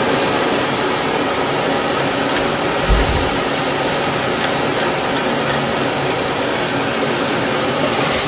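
Vacuum cleaner running steadily, its hose and brush nozzle sucking dust out of a gas combi boiler's combustion chamber, with a brief low bump about three seconds in.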